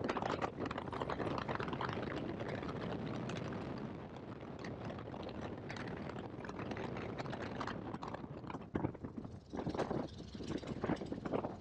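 Great Lakes biplane's engine idling with an even, knocking beat after parking, heard from the open cockpit; it turns uneven and dies away as the engine is shut down near the end.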